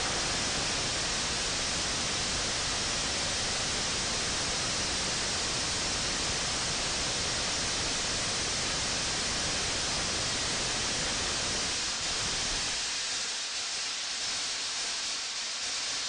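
Small amateur gaseous-oxygen, liquid-fuel rocket engine firing on a test stand: a steady rushing noise. About twelve seconds in the deep part of the sound falls away, and the noise dies out right at the end as the burn stops.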